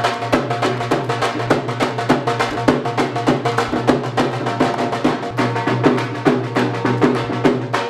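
Dhol drum playing a fast bhangra beat, several strokes a second, over a steady held low tone.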